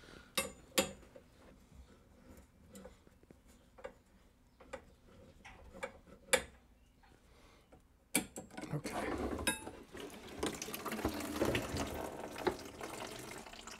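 Tubing cutter turned around a copper water-supply pipe, giving sparse light clicks. About eight seconds in, the pipe is cut through and the water left in the shut-off line runs out into a plastic bucket in a steady trickle.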